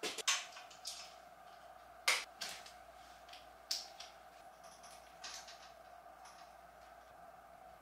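Scattered sharp knocks and clicks of handling as a tall floor-standing mirror is moved and a ring light on a tripod stand is set up, the loudest about two seconds in, over a steady faint hum.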